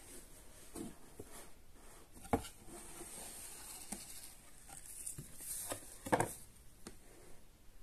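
Gloved hands handling a cardboard product box and opening its lid: cardboard scraping and rustling, with sharp knocks about two and a half seconds in and again, loudest, about six seconds in.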